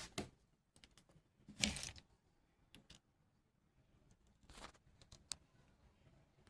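Faint scattered clicks and short scrapes of small metal lock-picking tools working a lock, with one sharp click about five seconds in.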